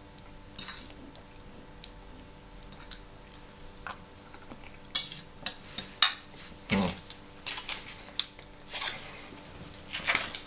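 Metal fork clinking and scraping against a ceramic plate while food is eaten from it. The clicks are sparse at first and then come in a quick cluster about halfway through, the sharpest a little past the middle.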